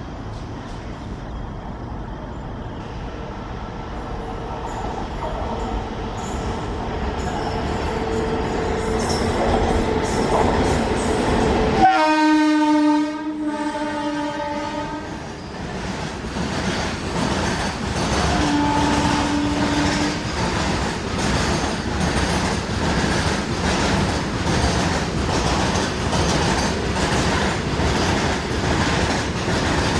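An Indian Railways electric freight locomotive approaching and passing, blowing its horn for about three seconds and then a second, shorter note. A long train of loaded covered wagons follows, its wheels clattering over the rail joints in a steady, even rhythm.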